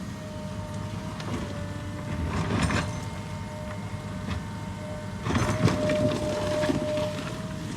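Excavator engine running steadily with a constant whine over it, with two louder spells of scraping and clattering, about two seconds in and again from about five seconds in.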